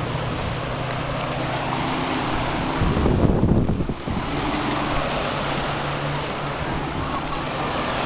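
Small waves washing and breaking onto a sandy beach, with wind on the microphone. A louder low rumble on the microphone lasts about a second, some three seconds in.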